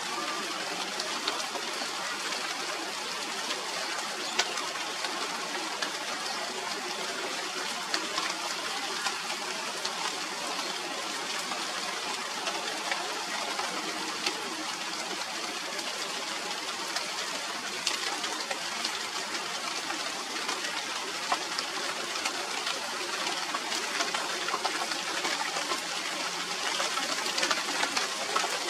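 Steady rain falling, with individual drops ticking on leaves through the hiss, a little heavier near the end.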